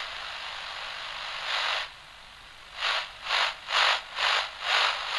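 Hissing noise like static, with no tone in it: a steady hiss, a brief swell, then five rhythmic swells of hiss a little over two a second in the second half. It cuts off abruptly.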